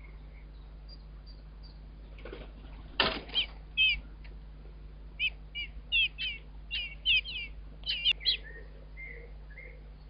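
A blackbird's wings flutter as it lands at the nest about three seconds in, then the nestlings give a quick run of thin, high begging squeaks as they are fed, tailing off to a few faint calls near the end. A low steady hum runs underneath.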